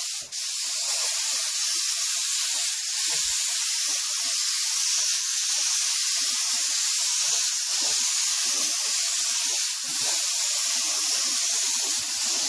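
HVLP gravity-feed spray gun hissing steadily as it sprays grey automotive base coat, with a brief break near the start.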